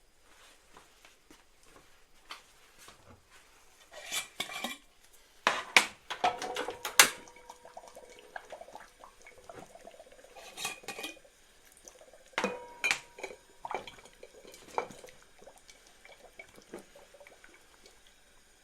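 Glass jars clinking and knocking as they are handled and set down, in four short bursts; some knocks leave a brief ringing tone.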